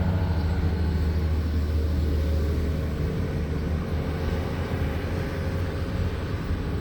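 A vehicle driving, with a steady low engine drone and road noise heard from inside the cab.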